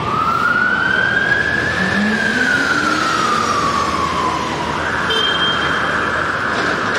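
An emergency vehicle siren wailing, sliding slowly up and then down in pitch, then switching to a rapid warble about five seconds in, over the steady rumble of city traffic.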